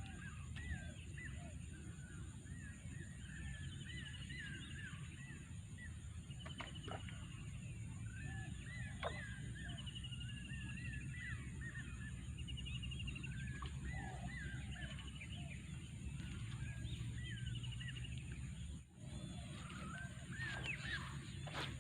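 Birds chirping with many short repeated calls and several fast, high trills, over a steady low rumble.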